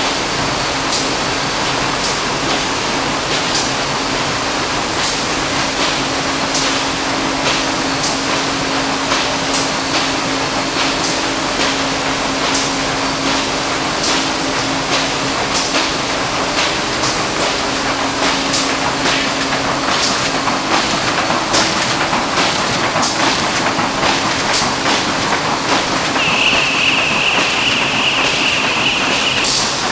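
Automatic flexo printer-slotter-die-cutter for corrugated carton running, a steady mechanical din with regular clacks about twice a second. A high steady whine joins for a few seconds near the end.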